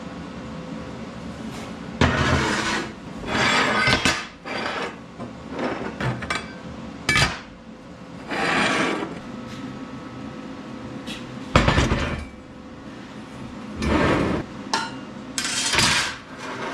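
Metal pieces being handled and set down in a workshop: a string of irregular clanks, knocks and short scraping sounds.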